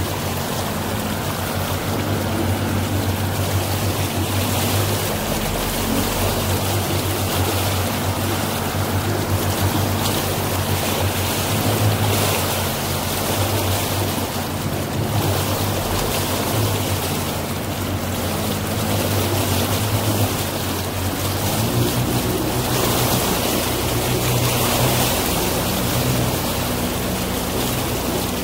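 Motorboat under way: a steady engine drone under the rush of water against the hull, the engine note changing about 22 seconds in.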